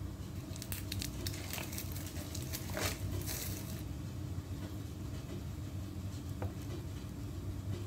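Light clicks and crinkly rustling from handling a Cup Noodle cup and its packaging, busiest in the first half, with one more click later on, over a steady low hum.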